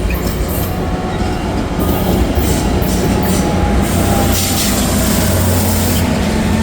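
Tri-Rail commuter train pulling out of the station: diesel locomotive running under a steady low hum, with rushing wheel and rail noise.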